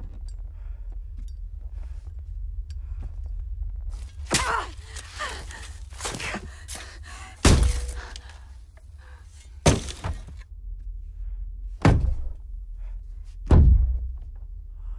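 Five heavy thuds about two seconds apart, over a low steady rumble, with some scraping between the first two.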